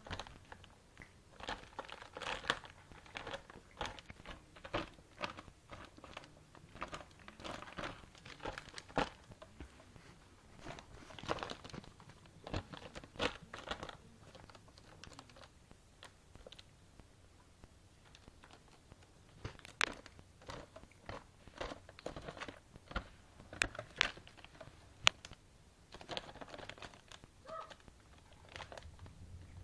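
Kittens pawing and scrambling over a plastic-wrapped pack of soda bottles, making irregular crinkling and crackling of the plastic wrap with scattered sharp taps. It quiets for a few seconds about halfway through.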